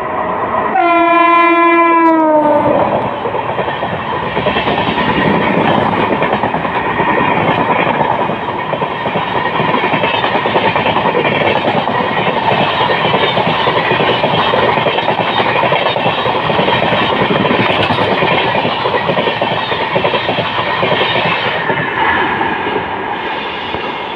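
An electric locomotive's horn sounds once for about two seconds, its pitch dropping at the end as it passes. Then comes the steady rush and clickety-clack of a long passenger train's coaches going by at speed.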